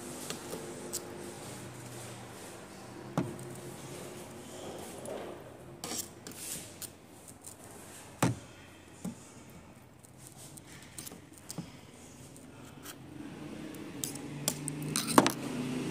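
Scattered small metallic clicks and taps as the steel parts of a power steering box's piston and ball nut are worked with a small screwdriver, with a quick run of sharper clicks near the end.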